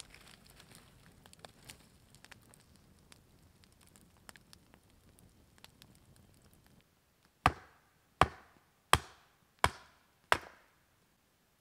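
Campfire crackling faintly, then, about seven seconds in, five sharp chops of a golok blade into wood, about 0.7 s apart, each ringing briefly.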